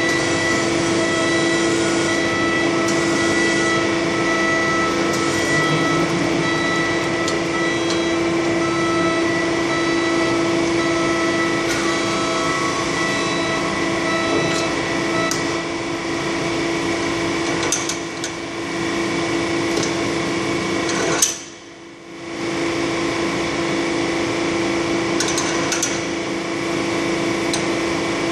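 Steady industrial machine hum with a constant whine and a few light clicks and knocks. About three quarters of the way through it cuts out suddenly after a sharp click, then returns about a second later.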